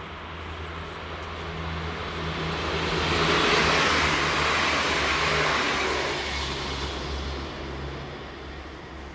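A vlexx regional multiple unit passing close by: a rushing noise of wheels on the rails over a low steady hum swells to its loudest about four seconds in, then fades as the train draws away.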